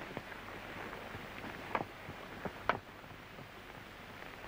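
Steady hiss of an old film soundtrack, broken by a few scattered clicks and pops, the two loudest close together in the middle.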